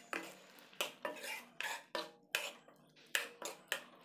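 Metal ladle stirring chole in a metal kadhai, scraping against the pan in a quick run of strokes, about two to three a second.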